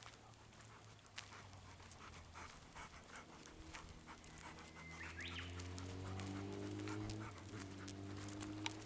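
Golden retriever panting. A low droning hum that rises slowly in pitch grows louder through the second half and becomes the loudest sound.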